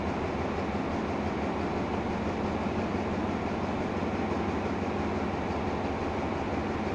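Diesel engine of a standing express train's louvred power car running steadily: a constant low hum with mechanical noise above it.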